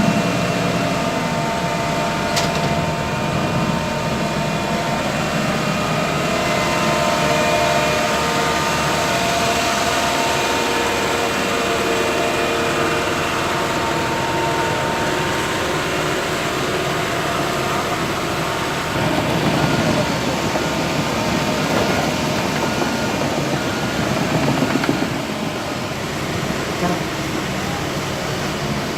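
Heavy diesel machinery running steadily, with a continuous low hum and engine tones, getting louder briefly twice in the second half; people's voices in the background.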